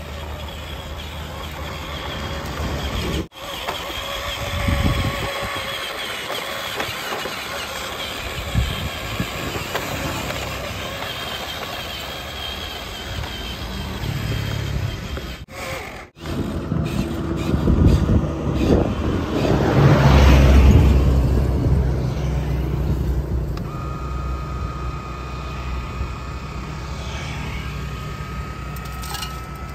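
Huina 593 remote-control excavator running with a steady engine-like drone. It swells louder about twenty seconds in and briefly cuts out near three and sixteen seconds. A thin steady whine sounds through the last several seconds.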